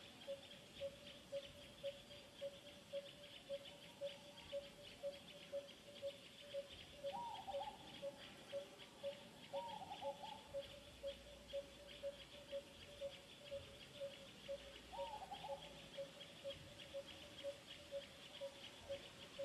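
Outdoor natural ambience: a low call note repeated evenly a little over twice a second, over a dense high trill of insects, with three short squeaky calls at about 7, 10 and 15 seconds.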